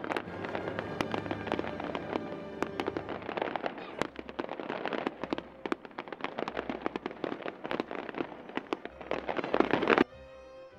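Fireworks display: a rapid, dense run of sharp bangs and crackles that grows thicker and louder toward a finale, then cuts suddenly to music about a second before the end.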